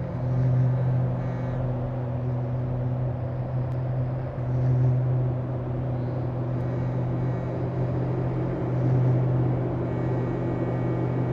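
Electronic noise music: a steady low drone with a hiss spread above it, swelling in loudness about every four seconds.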